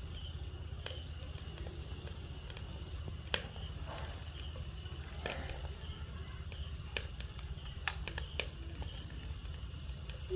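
Steady high chirring of crickets over a low hum, with scattered light clicks and taps from chopsticks working meat on the metal dome of a charcoal grill-hotpot pan.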